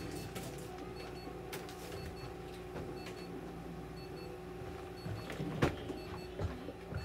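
Clinic treatment equipment running with a steady electrical hum while it gives a short, high double beep about once a second. A single sharp thump just before the end.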